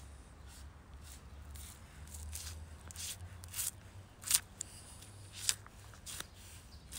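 Chef's knife slicing the membrane and fat away from a raw beef liver: a series of short, crisp cuts, the sharpest about four seconds in.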